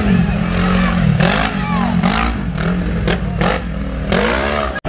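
Side-by-side UTV engine revving up and down in repeated swells as it works over the dirt obstacles, with short bursts of noise mixed in. The sound cuts out for an instant near the end.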